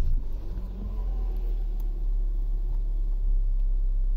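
Ford Fiesta ST180's 1.6-litre EcoBoost turbocharged four-cylinder engine just started and settling into a steady idle, heard from inside the cabin.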